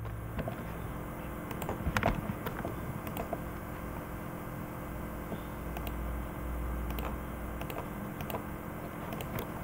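Scattered clicks from a computer keyboard and mouse, a few close together about two seconds in, over a low steady hum.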